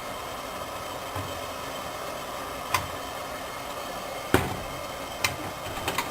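Steady hiss with four light, sharp clicks of kitchenware, the first about three seconds in and the others roughly a second apart.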